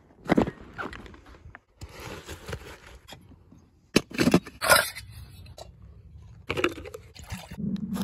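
Camp-gear handling noises: a crunching footstep on the forest floor, rustling and sharp scrapes as gear comes out of a mesh pouch, then a low steady rush starting near the end as the alcohol stove is lit.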